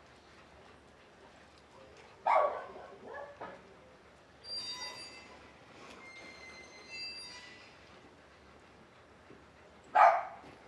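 Dogs barking: two single sharp barks, one about two seconds in and the loudest near the end, with a fainter high, thin whine in between.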